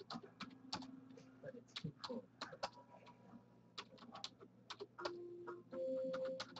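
Irregular clicking of typing on a computer keyboard, with a brief steady hum near the end.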